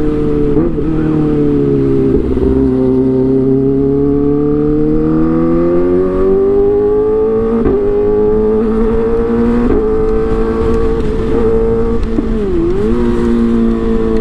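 Kawasaki ZX-25R's 250 cc inline-four with an Arrow exhaust running at high revs. The engine note sags slowly and climbs again, then holds fairly steady, with a few brief dips in pitch.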